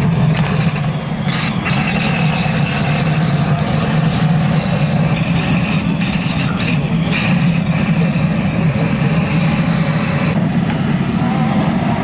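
A steady low mechanical drone, with a faint high whine that comes and goes.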